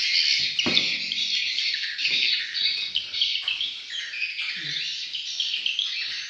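Swiftlet calls filling a swiftlet house: a dense, unbroken high twittering of many short chirps. A brief knock sounds just under a second in.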